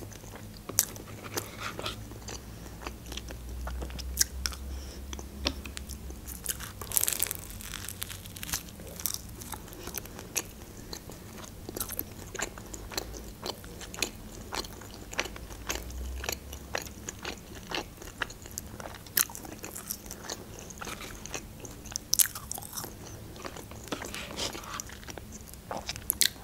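Close-miked eating into a clip-on microphone: spoonfuls of tomato soup, bites of toasted shawarma and fries, and chewing. Many short wet mouth clicks and crunches.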